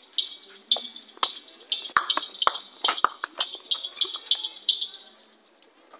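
Rapid metallic jingling: a string of sharp clinks, each with a short bright ring, about two to three a second, stopping about five seconds in.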